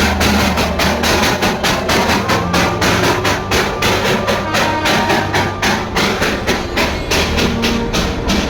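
Darjeeling Himalayan Railway toy train passing very close, with a fast, even clatter of about five or six knocks a second.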